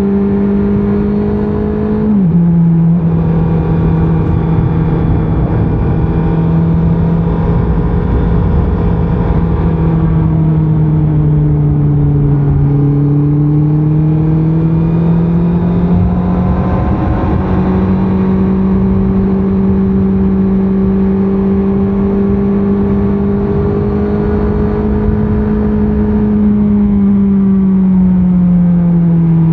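A 2024 Honda CBR650R's inline-four engine running under way through its stock exhaust, over steady wind and road noise. The engine note drops abruptly about two seconds in as it shifts up a gear. It sags and climbs back around the middle, holds steady, then falls away near the end.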